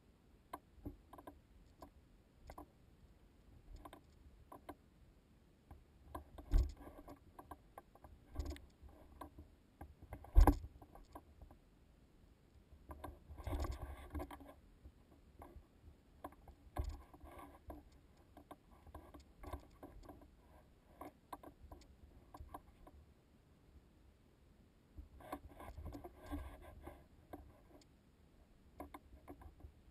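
Footsteps and scuffs on loose rock and gravel while scrambling down a rocky trail, with gear and the handheld camera pole clicking and knocking. There are irregular scrapes throughout, a few sharper knocks with the loudest about ten seconds in, and denser bursts of scraping around the middle and near the end.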